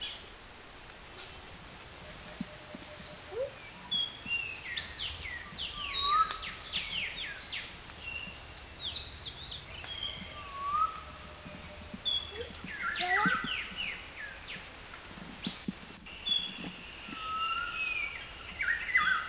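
Several birds chirping and calling, short quick notes and sweeping calls from many points, over a steady high-pitched hum.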